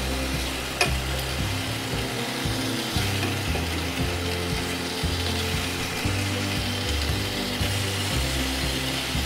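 Chicken breast fillets sizzling in oil in a frying pan, searing on their second side after being turned. A utensil taps the pan once about a second in.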